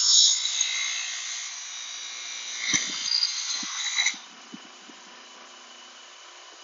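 Bench grinder wire wheel scraping against a pitted chrome motorcycle part, a harsh high-pitched rasp as the damaged chrome is stripped back. About four seconds in it cuts off sharply when the part is pulled away, leaving only the faint hum of the wheel still spinning.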